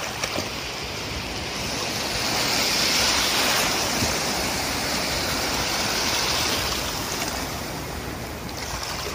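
Small sea waves washing in over shallow water: a steady rush that swells to a peak about three seconds in, then slowly eases.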